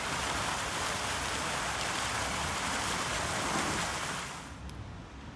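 Pool fountain jet splashing steadily into shallow water, a continuous rushing splash that fades away about four seconds in.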